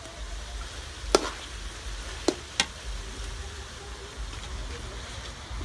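Metal spatula knocking against a steel wok as Muscovy duck pieces are stir-fried, with a faint sizzle underneath. There are three sharp clinks: one about a second in, then two close together a little past two seconds.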